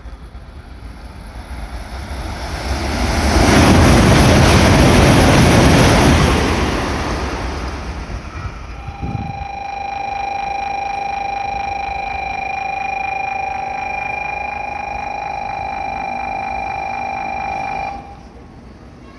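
A Shinkansen bullet train passing through at speed: a rushing roar that builds over a few seconds, stays loud for about three seconds, then fades away. A steady high electronic tone follows for about nine seconds and cuts off sharply near the end.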